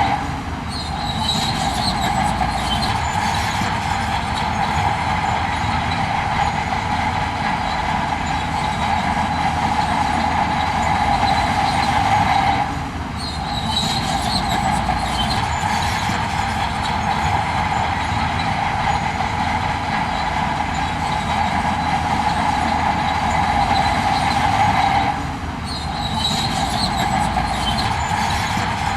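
Heavy earthmoving machinery running steadily, with a constant engine drone and metallic clatter. It dips briefly and picks up again about every twelve seconds, with a burst of high metallic ticks just after each dip.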